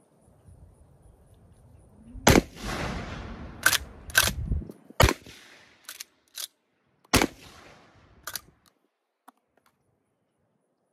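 An original Winchester Model 1901 10-gauge lever-action shotgun fired several times, each heavy boom trailing off in a long echo. Sharp metallic clacks of the lever being worked to eject and chamber shells come between the shots.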